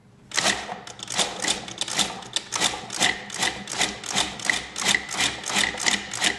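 Countertop food processor being pulsed to chop whole chickpeas with tahini, lemon juice and garlic: the motor and blade come in rapid short bursts, about four a second, as the beans break down toward a paste.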